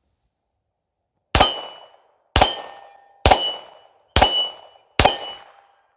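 Five .22 LR pistol shots from a Smith & Wesson 422, starting about a second in and coming about one a second. Each shot is followed at once by the ringing clang of the bullet hitting a steel target.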